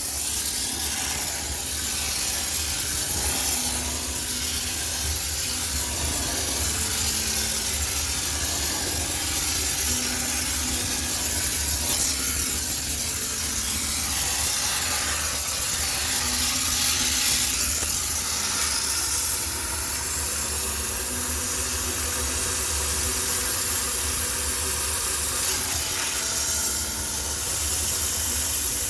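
High-pressure steam cleaner jetting steam in a steady hiss, with a low hum underneath.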